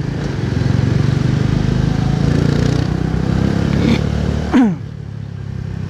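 Motorcycle engine running steadily under way, heard from the rider's seat together with road and wind noise. About four and a half seconds in comes one brief, loud sound that falls in pitch.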